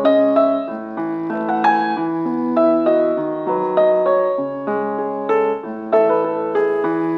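Background solo piano music, notes struck about every half second and left to ring.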